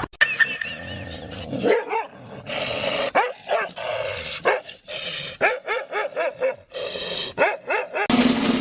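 A dog giving a long run of short, pitched calls that rise and fall, a few a second, until a sudden change just before the end.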